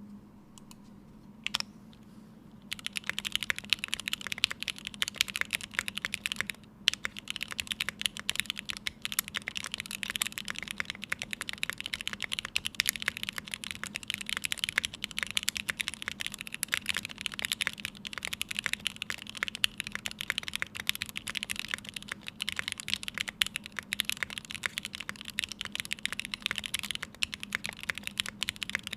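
Fast, continuous typing on a Day Off 60 mechanical keyboard with an aluminium plate, Krytox-lubed Gateron X r1 linear switches and GMK keycaps. A single keystroke comes first, and the steady typing starts about three seconds in, with a brief break a few seconds later.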